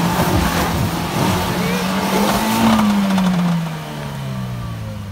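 Off-road vehicle's engine under load, its pitch rising to a peak about two and a half seconds in, then falling as it eases off and fades.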